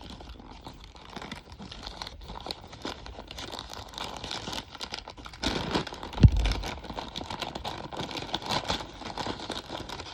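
Packaging crinkling, rustling and tearing as a smoke detector's box is opened, with one loud dull thump about six seconds in.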